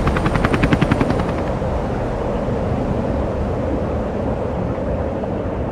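Helicopter rotor chop, a rapid even beat that fades after about a second and a half into a steady low rumble.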